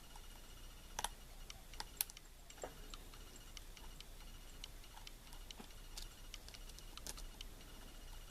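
Faint, irregular metallic clicks and ticks of a lock pick working the pin tumblers of a pin-tumbler KIK cylinder under light tension during single-pin picking, with a few sharper clicks as pins are pushed and set.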